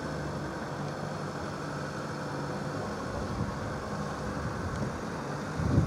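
Twin-engine jet airliner on short final approach, its engines a steady low roar. Near the end, a sudden low rumble of wind buffeting the microphone.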